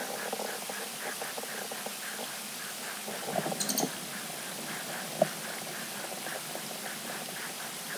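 Outdoor ambience of a steady, pulsing chorus of small calling animals, about four to five chirps a second. There is a short burst of louder calls a little past three seconds in, and one sharp call just after five seconds.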